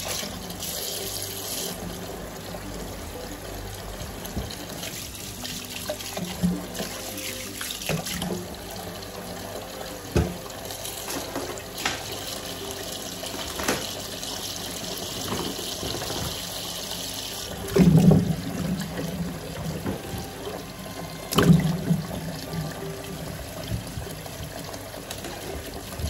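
Kitchen tap running steadily into a stainless steel sink full of water, splashing over vegetables being rinsed. Twice in the second half there are louder thumps.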